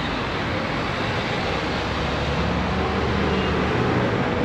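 Steady low engine hum under a broad rush of noise; the hum grows stronger about a second and a half in.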